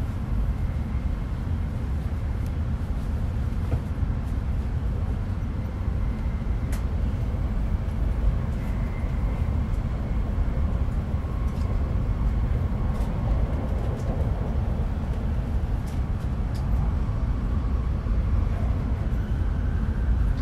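Steady cabin noise of an E5-series Tohoku Shinkansen train running along the line: a low rumble with a faint high whine and a few light ticks.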